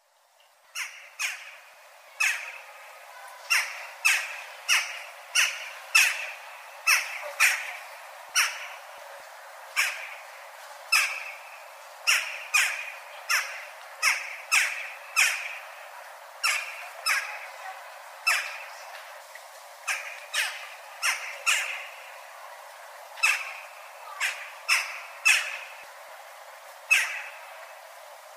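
Western jackdaw giving a long run of short, sharp calls, about one a second at an uneven pace, with a few brief pauses.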